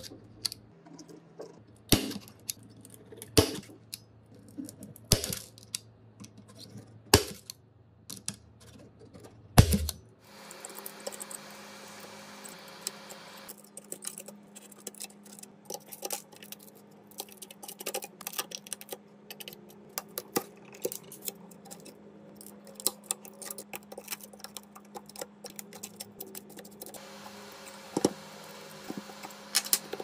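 A glass-breaking pen cracks the iPhone 14 Pro's back glass around the camera lenses in sharp, loud snaps every second and a half to two seconds. From about ten seconds in, a blade scrapes and ticks over the broken glass shards under a steady hum.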